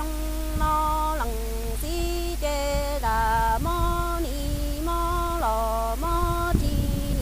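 A woman singing kwv txhiaj, Hmong sung poetry, solo and unaccompanied. Each note is held for up to a second or so and steps to a new pitch with a short glide, in a chant-like line.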